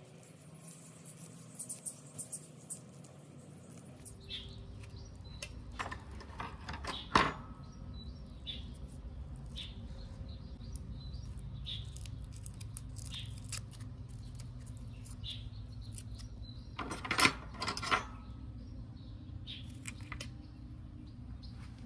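Fingers handling fleshy succulent rosettes, with sharp clicks and snaps of leaves being worked and pulled off, loudest about 7 seconds in and again around 17 to 18 seconds. Faint bird chirps and a low steady hum sit underneath.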